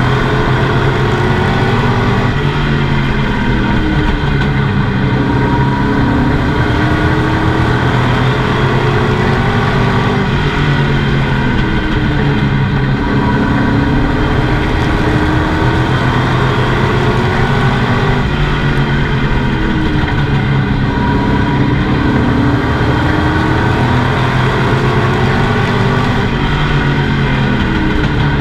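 Pro Truck race engine heard loud from inside the cab at racing speed, its pitch repeatedly climbing and falling about every eight seconds as the driver accelerates down each straightaway and lifts for each turn.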